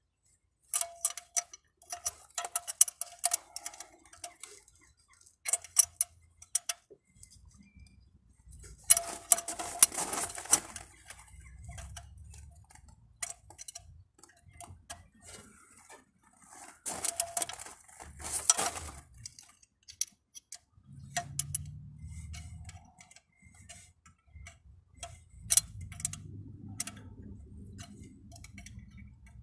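Ratchet wrench clicking in short back-and-forth strokes as a diesel engine's glow plug is undone, with two spells of rapid clicking about a third and two-thirds of the way through. Dull handling noise on the engine runs under the clicks in the last third.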